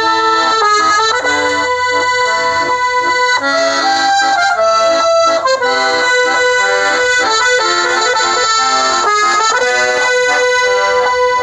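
Accordion (sanfona) playing a tune: held melody notes over short, repeated chord notes lower down.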